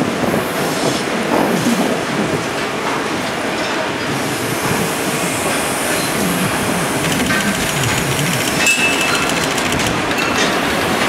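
Freight train passing: a DD51 twin-engine diesel-hydraulic locomotive hauling Taki 1000 tank wagons, its engine running steadily under the clack of wagon wheels over rail joints. A few short high wheel tones come through near the end.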